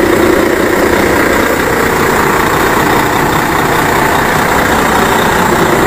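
Volvo truck's diesel engine idling steadily, heard close up.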